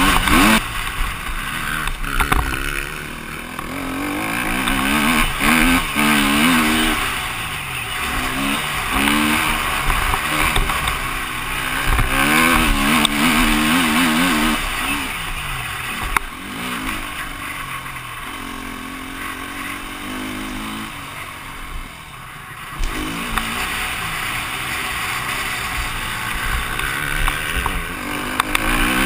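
KTM EXC-F 250 four-stroke single-cylinder dirt bike engine, heard from the rider's helmet camera, revving up and down over and over as the bike is ridden hard around a motocross track. It eases off about halfway through and picks up sharply again a few seconds later.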